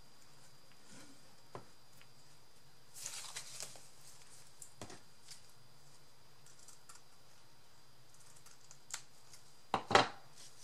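Nylon tulle netting rustling as it is handled, with a few faint clicks and a loud, sharp double click near the end, over a faint steady hum.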